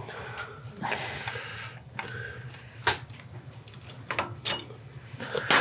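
Handling noises of small metal parts and hand tools at a motorcycle engine's side cover: light scraping and rustling with a few sharp metallic clicks, the loudest about three seconds in, over a faint steady hum.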